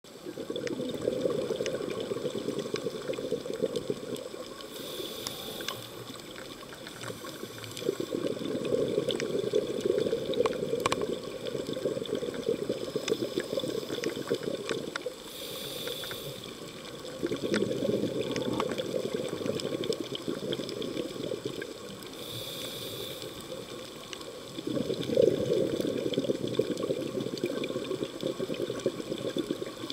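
Scuba diver breathing through an open-circuit regulator underwater: a short hiss on each inhale and a longer bubbling rush of exhaled air on each exhale, repeating about every eight seconds.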